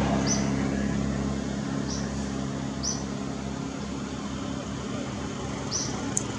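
Outdoor background noise: a steady low engine-like hum that fades over the first second or two, under a constant hiss, with a few short high chirps.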